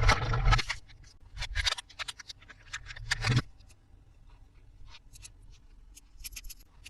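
Toys and their packaging being handled during an unboxing: a burst of rustling at the start, scattered short clicks and taps, a louder scrape a little past three seconds, then fainter light clicks.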